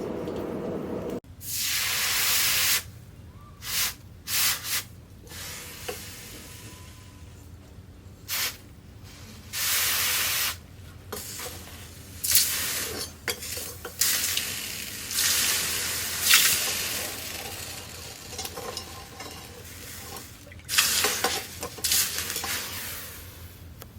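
Repeated bursts of hissing noise, each from a fraction of a second to about a second and a half long, with quieter gaps between; a low hum cuts off about a second in.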